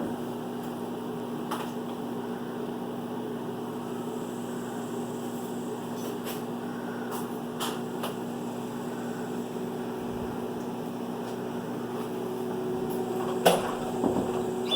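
Microwave oven running with a steady hum, a few faint clicks over it and one sharper click near the end.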